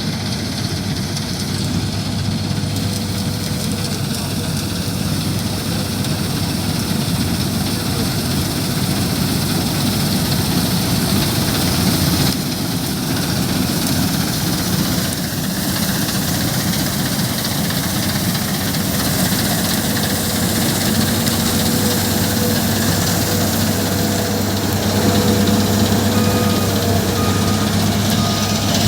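Heavy farm machinery used for wheat harvesting, its engine running steadily at a constant speed.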